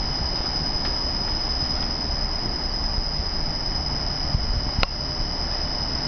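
Industrial fan running steadily and blowing a strong airflow, a rushing noise with low rumble and a steady high-pitched whine over it. A single sharp click about five seconds in.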